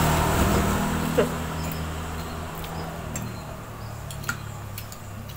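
Small clicks of a metal spoon against a plastic food tray and crinkles of a plastic bag while eating, with one short high squeak about a second in and a low hum fading out over the first couple of seconds.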